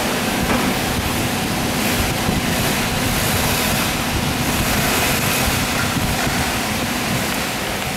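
Steady loud rushing air noise with a faint low hum, like a fan or blower running.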